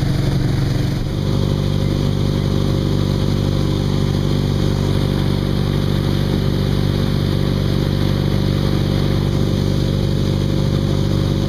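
A tow boat's engine running steadily as a low hum, over a constant rushing of water from the wake; the engine's tone shifts slightly about a second in.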